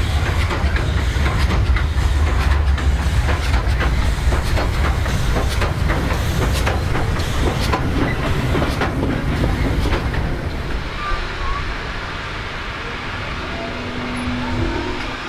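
Victorian Railways K-class steam locomotive K100 and its wooden carriages passing at close range: a heavy rumble with wheels clattering over the rail joints, easing off after about ten seconds as the train draws away.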